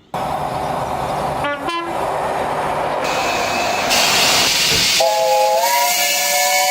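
A train running close by with a steady rush of noise, sounding a short horn toot about a second and a half in, then a longer horn blast from about five seconds on whose pitch steps up partway through.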